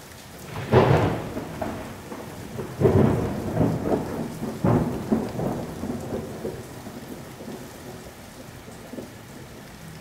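Thunderstorm sound: several loud rolls of thunder in the first five seconds over a steady hiss of rain, dying away after that.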